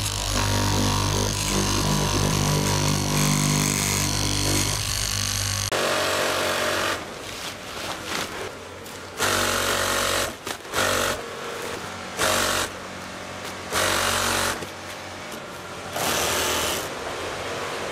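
Electric fabric-cutting machine with a vertical blade running steadily as it cuts through tent fabric. About six seconds in, this gives way to a JACK industrial sewing machine stitching in short bursts of a second or less, about five times, with quieter pauses between as the fabric is repositioned.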